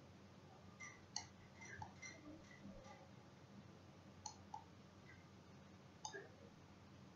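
A few faint, scattered computer-mouse clicks over near-silent room tone, the loudest about a second in.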